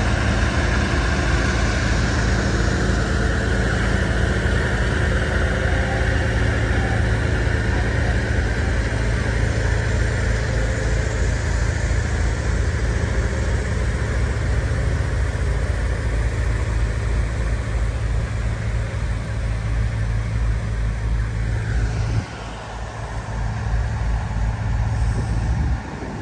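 Heavy-haul Scania 650S truck and its multi-axle blade trailer rolling slowly past: a steady, low diesel engine note with tyre and running-gear noise. The level drops suddenly about 22 seconds in.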